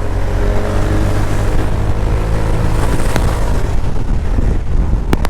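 Motorcycle engine running steadily at speed under heavy wind noise on the microphone, with its pitch shifting slightly in the first few seconds.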